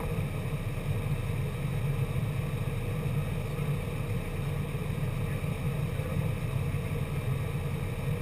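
A car engine idling steadily while the car stands still, heard from inside the cabin as a low, even hum.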